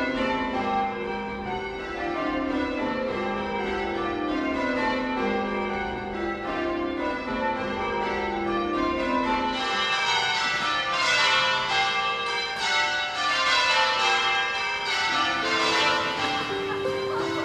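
A ring of tower bells rung full-circle by ropes in rounds: the bells strike one after another from highest to lowest, over and over, and grow brighter and louder from about ten seconds in.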